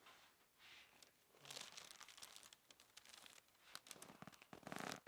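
Irregular crinkling and rustling as a patient shifts onto their side on a chiropractic table. It gets busier about a third of the way in and is loudest near the end.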